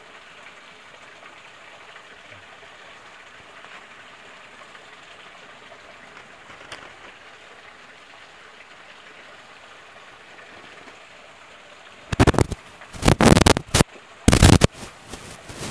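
Steady hiss of running stream water. About twelve seconds in, a run of loud, irregular crackling bursts starts and becomes the loudest sound.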